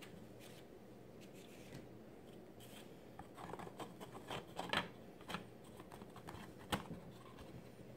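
Laser-cut MDF tier being fitted onto slotted MDF supports: a run of light wooden clicks and taps midway, then one sharper click near the end as it seats.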